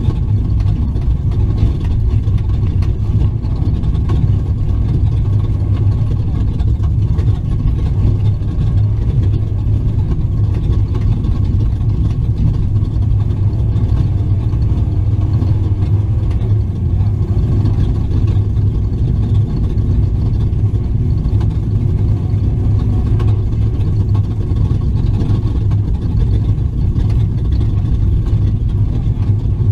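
Steady, loud drone of a desert race truck's engine and drivetrain, heard on board, with a strong low hum and a rumbling haze above it.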